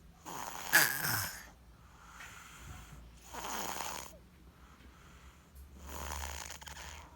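A sleeping baby snoring like an adult. Three noisy snoring breaths come about two and a half seconds apart, and the first is the loudest.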